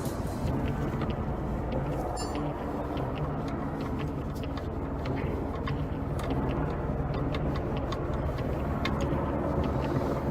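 Chrysler 300's 3.5-litre V6 idling steadily, with scattered light clicks over the engine note.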